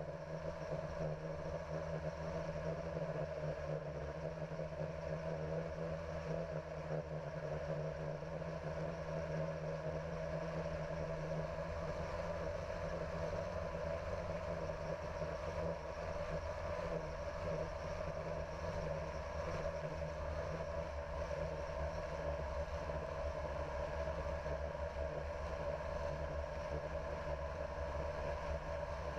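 Multirotor drone's electric motors and propellers humming steadily, heard from the camera carried on it.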